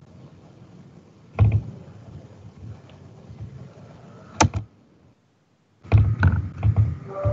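A few dull thumps and knocks over faint hiss, with a sharp double click in the middle and a brief drop to dead silence before a closing cluster of knocks, heard through online-call audio.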